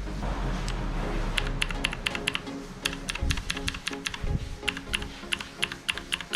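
Clicky blue mechanical key switches of a MageGee MK1 keyboard being typed on: a fast, uneven run of sharp clicks starting about a second in, with background music underneath.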